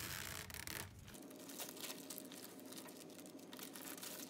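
Plastic Amazon mailer bag crinkling and rustling faintly as it is handled and pulled open, busiest in the first second.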